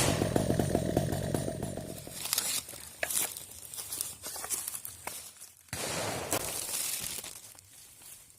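Stihl 070 two-stroke chainsaw running with a fast, even pulse, then cutting off about two seconds in. After it stops come scattered rustling and crackling noises, with one longer burst of rustle about six seconds in.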